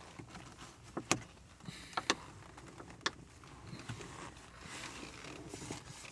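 A few sharp plastic clicks and knocks, with light rustling of handling, as a mount clipped to a car's sun visor is adjusted by hand: one click about a second in, two close together after two seconds, and one more about three seconds in.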